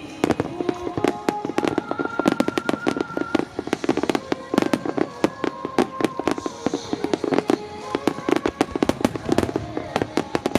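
A dense barrage of aerial firework shells bursting, many sharp reports every second with no letup, as in the Phoenix display at the Nagaoka fireworks. Music with long held notes plays underneath.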